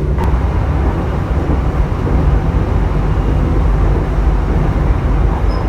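Steady low rumble of a passenger train running along the line, heard from inside the coach.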